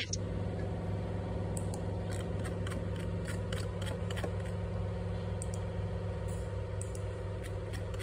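A steady low machine hum with irregular light clicks and ticks over it.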